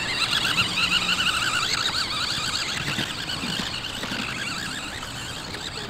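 Remote-control toy quad bike driving off, its small electric motor and gears whining with a wavering pitch, fading as it moves away.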